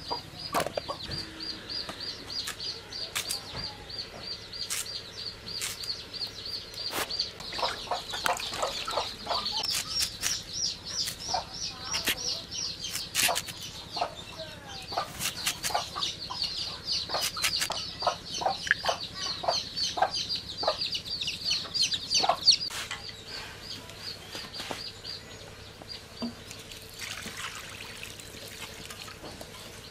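Domestic chickens clucking, with short sharp calls and clicks, over a rapid high chirping that repeats several times a second and stops about three-quarters of the way through.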